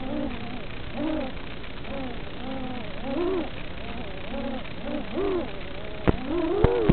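Racing quadcopter's 2206 2600KV brushless motors and props whining, heard from on board. The pitch rises and falls in repeated swells as the throttle is punched and eased through the course. Two sharp clicks come close together near the end.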